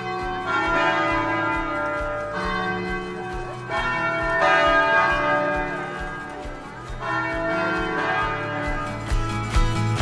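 Church bells ringing: several bells sound together in long, overlapping ringing tones, with fresh strikes every two to three seconds.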